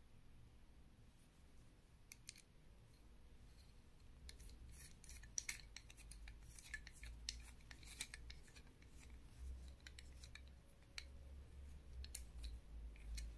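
Faint metallic clicks and scrapes as a small bolt and spring are worked by hand into a slotted copper pipe, the hammer housing of an airgun. The clicks are scattered, thickest a few seconds in and again near the end.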